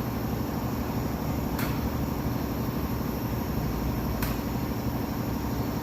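Steady low rumble, with two sharp clicks, one about a second and a half in and one about four seconds in.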